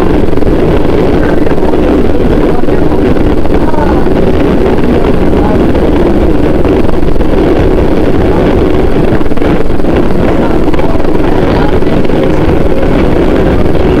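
New York City Subway train running at speed through a tunnel, heard from aboard: a loud, steady rumble of steel wheels on rail with a faint squeal above it.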